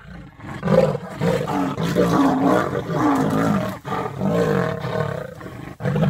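Lions fighting over a kill, giving loud, continuous snarls and growls from about a second in, with a brief break near the four-second mark.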